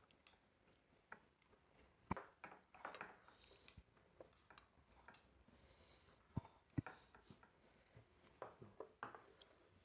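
Metal spoons clinking and scraping against small ceramic bowls while eating, a few sharp clinks spread out among quiet eating noises, the loudest about two seconds in and twice more between six and seven seconds in.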